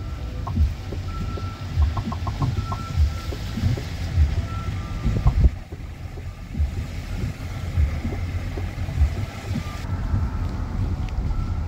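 A car driving, with a steady low road rumble and music playing under it: regular deep bass thumps about once a second and a thin melody on top.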